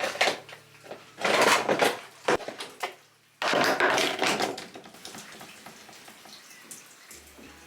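Metal parts being handled, clattering and scraping in two rough bursts, each about a second long. The first comes about a second in and the second about three and a half seconds in, with lighter clicks after.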